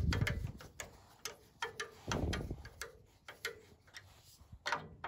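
A hand screwdriver, an original Ford Model A tool, turning a slotted screw: irregular small clicks and short scrapes as the blade works in the screw slot.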